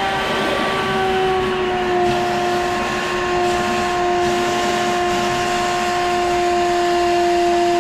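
Wet/dry vacuum motor running steadily with a high whine while sucking water out of a boat's bilge; the whine drops slightly in pitch about a second and a half in, as the motor takes on load.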